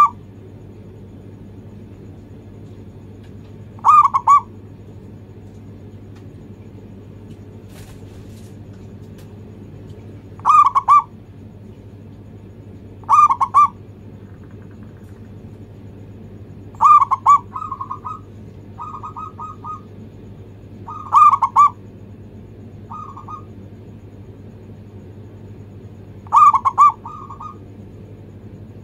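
Zebra dove (perkutut) cooing: short bubbling coos repeated every few seconds, six louder phrases in all, with softer, quieter coos between them in the second half.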